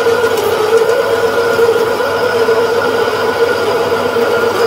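Metal lathe running at slowed-down speed while a 19 mm twist drill in the tailstock is fed into the spinning bar, drilling it out; a steady mechanical whine of the machine and the cut.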